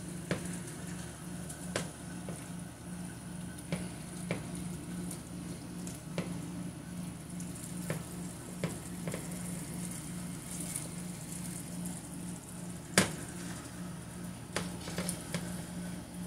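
Omena fish stew sizzling and simmering in a frying pan while a plastic spatula stirs it, with scattered light knocks of the spatula against the pan, the sharpest about thirteen seconds in.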